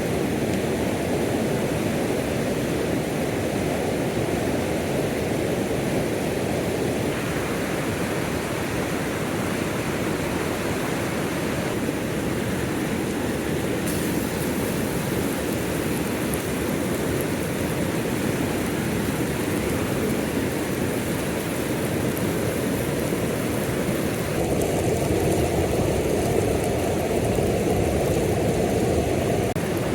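Steady rushing noise with no distinct events, changing abruptly in tone at several cuts and a little louder from about 24 seconds on.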